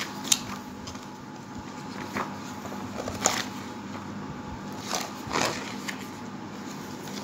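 Glossy pages of a children's encyclopedia being turned by hand: a handful of short paper swishes and flaps, one every second or two, over a faint steady hum.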